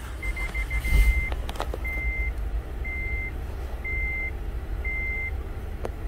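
A Honda Odyssey's 3.5 L V6 starts about a second in and runs with a steady low rumble while misfiring on cylinder 3, which has an oil-fouled spark plug. Over it an electronic chime gives a few quick beeps, then longer beeps about once a second.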